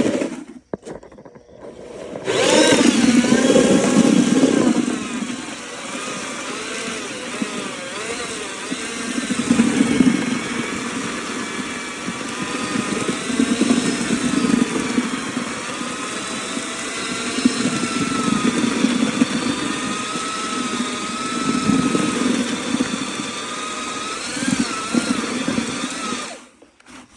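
Electric drill driving a paddle mixer through a bucket of cement mix, the motor whining with its pitch wavering as the speed and load change. It stops briefly about half a second in, starts again about two seconds in, and stops near the end.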